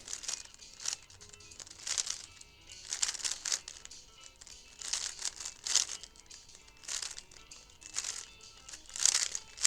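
Plastic 3x3 speedcube being turned by hand: short clacking bursts of layer turns, about one a second, with faint background music underneath.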